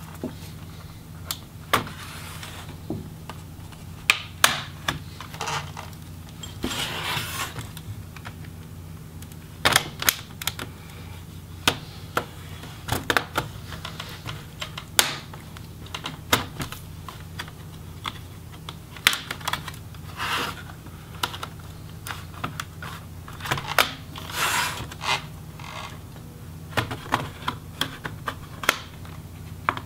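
Plastic clips of an HP Pavilion 17 laptop's palm rest snapping loose as it is pried off the bottom case with a flat tool: irregular sharp clicks and snaps, with a few short scrapes.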